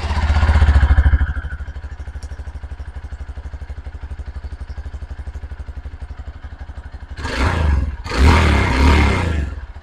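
Hero Xpulse 200 4V's 200 cc single-cylinder engine heard through its stock silencer. It is just started and runs a little high for the first second before settling to a steady idle with a fast, even exhaust pulse. It is then revved twice, briefly at about seven seconds and again for about a second and a half near the end. The exhaust sound is normal and stock.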